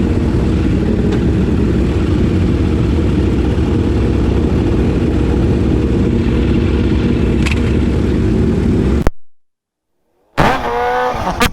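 Motorcycle engine running under way, heard from the bike with heavy wind and road noise, steady for about nine seconds. The sound then cuts out abruptly for about a second and comes back with an engine revving, its pitch rising.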